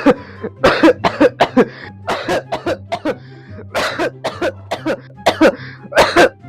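A person coughing hard in repeated rapid fits, several coughs at a time, after choking on water.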